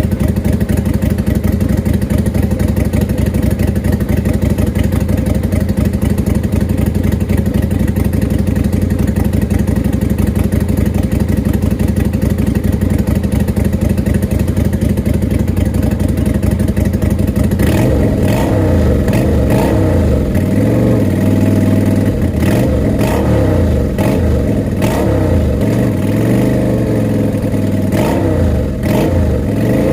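Freshly rebuilt Lifan LF250-H motorcycle engine running through a curved horseshoe exhaust. It idles steadily, then from a little past halfway is revved up and down again and again, with sharp cracks among the revs.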